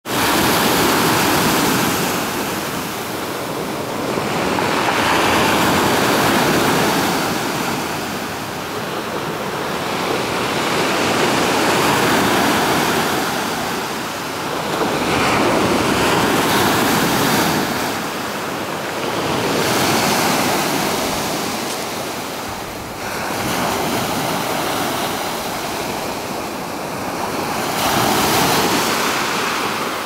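Storm surf breaking on a pebble beach: the rush of each wave swells and fades every three to five seconds.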